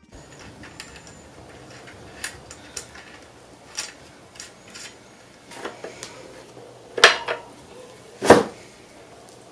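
Light metal clinks and clicks of a BMX front wheel's axle and nuts being worked into the fork dropouts by hand, with two louder sharp knocks about seven and eight seconds in.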